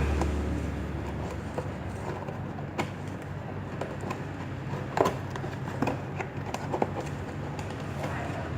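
A cardboard product box being opened and its contents handled, giving scattered short clicks and knocks over a steady low hum.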